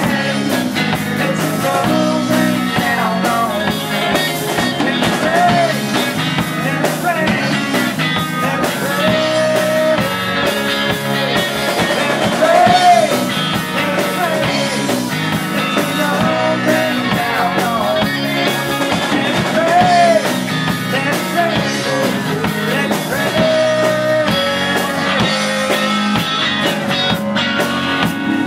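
Live rock band playing: acoustic and electric guitars, bass guitar and drum kit, with a voice singing over them.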